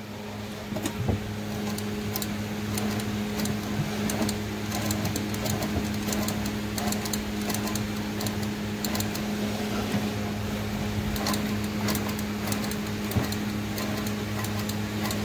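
ORPAT sewing machine running steadily, stitching a test seam through cloth. It hums with a fast, dense ticking from the needle and hook mechanism, starting about half a second in.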